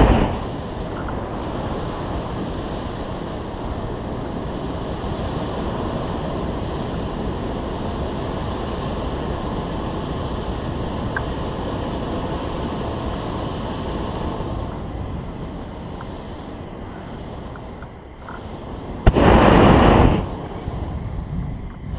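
Hot-air balloon propane burner firing in one loud blast of about a second, some 19 seconds in, with the end of an earlier burn cutting off right at the start. In between, a steady rush of wind noise on the microphone.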